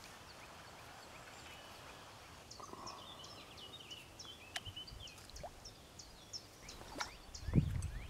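Bird chirps, a run of short high notes starting a few seconds in, laid onto the soundtrack as an added sound effect rather than live birds. A low rumble comes in near the end.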